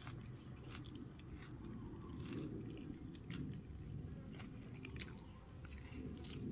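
A person chewing a mouthful of khanom jeen rice noodles and raw greens close to the microphone: a run of short, irregular wet chewing clicks.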